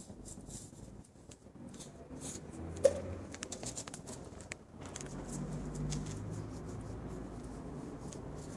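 Handling noise from a handheld phone: fabric rubbing against the microphone, with scattered small clicks and scratches and one sharp click about three seconds in.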